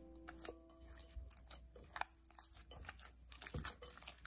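Soft, sticky bread dough being squeezed and kneaded by hand in a glass bowl, with butter being worked in: irregular wet squelches and little smacks, a cluster of sharper ones near the end.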